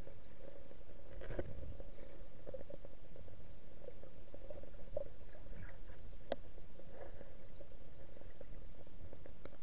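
Muffled underwater sound of a river heard through a submerged camera: a low, steady rumble of water with a faint constant hum and scattered small clicks and knocks, the sharpest about six seconds in.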